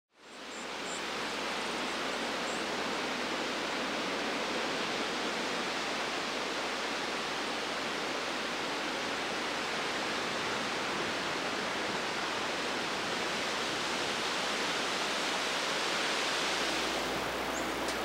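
Steady, even rushing of running water, with a few faint, high, very short chirps in the first few seconds.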